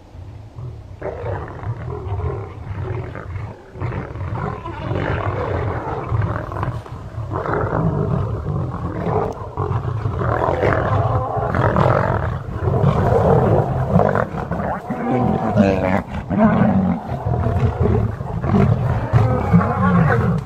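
Male lions fighting, with loud, rough roaring that starts about a second in and grows louder and denser.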